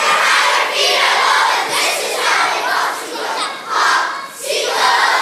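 A large crowd of children shouting together in loud repeated bursts, like a chant, echoing in a gymnasium.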